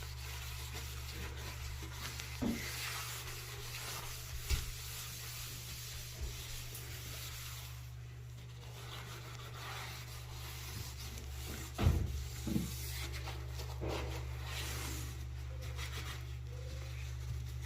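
Hand scrubbing of a bathroom surface, a rubbing sound that rises and falls over a steady low hum. A sharp knock comes about twelve seconds in.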